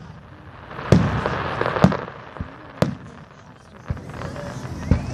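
Aerial fireworks shells bursting: about five sharp booms roughly a second apart, with a spell of hiss after the first boom. A faint rising whistle comes near the end.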